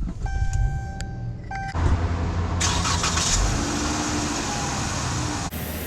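A steady electronic tone sounds for about a second, then the 2015 Chrysler 300S's 3.6-litre Pentastar V6 cranks and starts, running on with a steady rumble.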